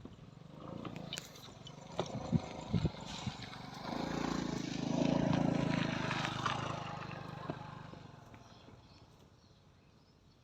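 A cow moos: one long, low call that swells, peaks and fades over about four seconds. A few sharp knocks come before it.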